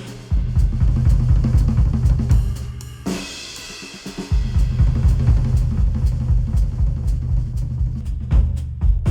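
Drum-heavy music with a deep bass line, played back through headphones and picked up by microphones at the ear cups. The bass and kick drop out for about a second around three seconds in, then the full beat returns.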